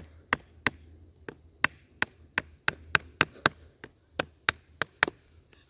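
Sharp wooden knocks, about three a second with a short pause past the middle: a wooden baton striking the blade of a Victorinox Outrider Swiss Army knife to split a small branch, the blade folded to about a right angle to spare its lock.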